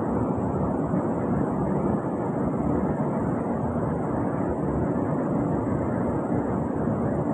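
Steady low background noise, like a machine or fan hum, with no breaks or changes.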